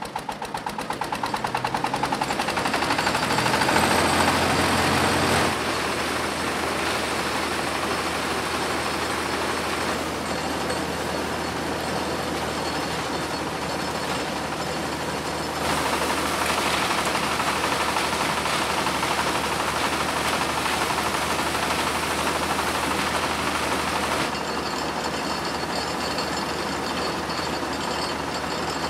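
An engine running: its beat quickens and grows louder over the first few seconds, then it runs steadily, the sound shifting abruptly a few times.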